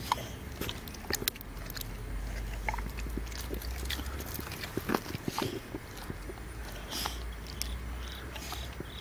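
A dog licking and smacking its lips after eating, with scattered short wet clicks of tongue and mouth.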